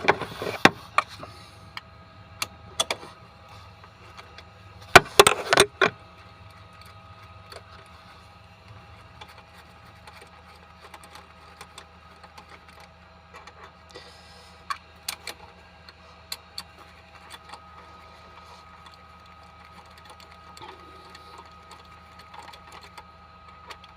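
Wrench and ratchet clicks and metal knocks as cylinder head bolts are worked loose on a Vauxhall Insignia 1.8 petrol engine, with a loud clatter about five seconds in and scattered ticks after it.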